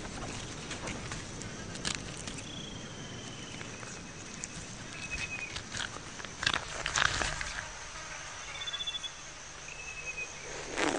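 Outdoor ambience of irregular scrapes and knocks, a cluster of them about two-thirds of the way in, with a few short thin high whistles and a faint steady high insect drone.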